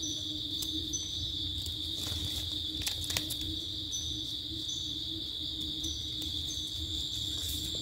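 A steady insect chorus in the forest: a continuous high buzz with short higher chirps repeating over it. A knife scraping a mushroom stem clean adds a few faint scrapes and clicks.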